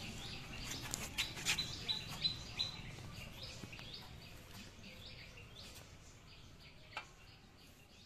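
Small birds chirping in the background, with a run of light clicks and taps in the first three seconds and one more near the end as the steel engine-guard plate and its bolts are handled against the crash guard.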